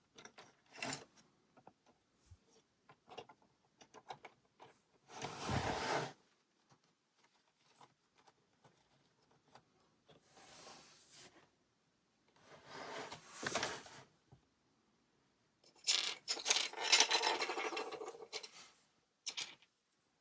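Lego bricks being handled during assembly: scattered small plastic clicks and four bursts of rubbing, rummaging noise, the longest and loudest near the end.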